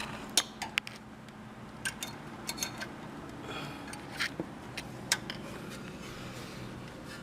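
Hand tools clicking and clinking against metal in the engine bay as a cold-air intake clamp is worked tight, a few sharp ticks spread over several seconds above a steady low hum.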